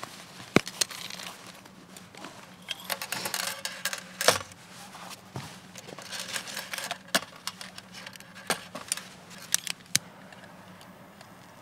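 Close handling noises as a collapsible candle lantern is taken from its case, set down on a thin metal stand and pulled open: scattered sharp clicks and taps, with a few stretches of rustling from gloves and clothing.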